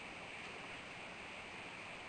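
Steady hiss of wind and microphone noise on a bald eagle nest camera, with one faint, very short sound about half a second in: a young bald eaglet sneezing.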